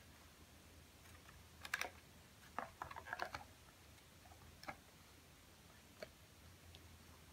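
Light plastic clicks and taps of a pickguard being laid on a Stratocaster body and shifted into place: a short cluster of clicks, a quick rattling run a moment later, then two single taps.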